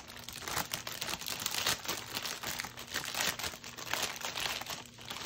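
Clear plastic bag crinkling as packets of diamond painting drills are pushed back into it by hand: a continuous run of crinkles and rustles.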